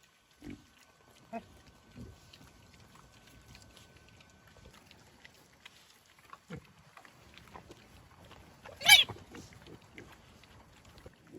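Pigs grunting, a few short low grunts here and there, with one loud high-pitched squeal about nine seconds in.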